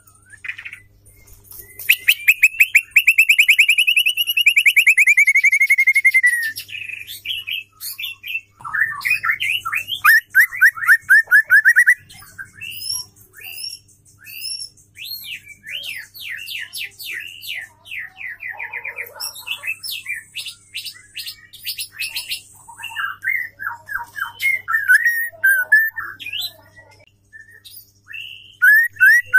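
Female white-rumped shama singing: a loud, fast trill about two seconds in that lasts some four seconds and slowly falls in pitch, then varied rapid whistled phrases and chirps.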